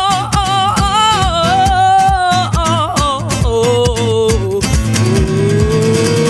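Live song: a woman's voice holds a long, wavering note over fast, hard-strummed acoustic guitar. About four and a half seconds in, the strumming stops and the voice slides slowly upward.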